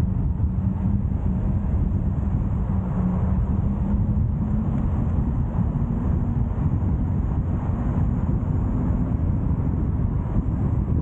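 A car driving along a road: steady low road and wind rumble, with a faint engine hum.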